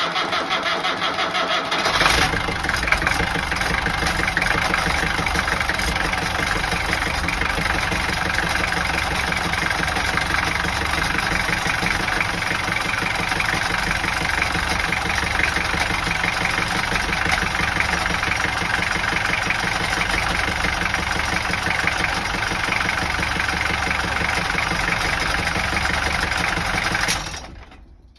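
Starter motor cranking the boat's inboard diesel engine for about two seconds, then the engine catches and runs steadily at idle. The sound falls away near the end.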